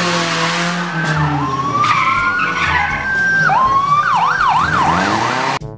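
Police car sirens sounding over moving cars: a tone that rises slowly and drops, rises again, then switches to a fast yelping warble of about four cycles a second near the end. The sound cuts off suddenly just before the end.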